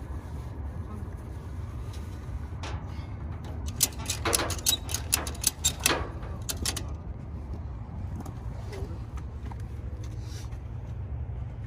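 Yellow ratchet tie-down strap being cranked tight: a run of about ten sharp ratchet clicks starting about four seconds in, over a steady low rumble.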